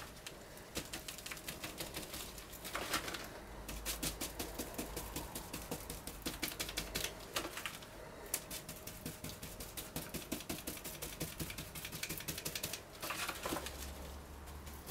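Paintbrush dabbing polyester resin into fibreglass chopped strand mat over a polystyrene block: a quiet, rapid run of soft taps and pats as the mat is wetted through.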